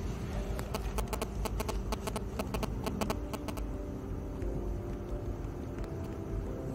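A small sedan rolling in slowly: a low engine and road rumble, with a quick run of sharp crunching clicks in the first half as the tyres roll over loose grit and stones.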